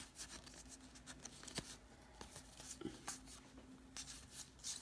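Faint rustling and light clicks of trading cards being handled and flipped through one after another.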